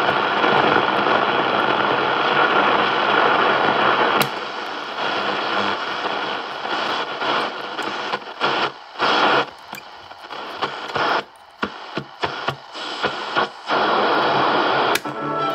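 1976 Roberts Rambler R606-MB transistor radio being tuned across the dial. First a steady hiss of static, then from about four seconds in the sound breaks up into snatches of stations that come and go with short gaps. Music comes through near the end.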